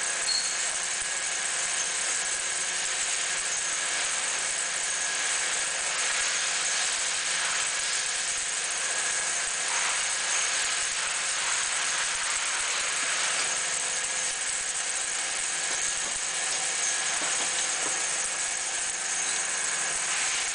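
Hardinge DSM-A automatic second-operation lathe running through its automatic cycle: the motor and spindle run steadily with a rattle, and a few faint clicks come as the turret and slides move.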